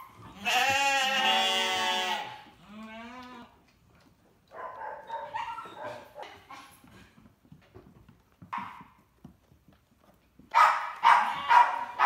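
Sheep bleating: a loud, long, wavering bleat about half a second in, a shorter bleat just after, scattered calls in the middle, and a quick run of loud short calls near the end.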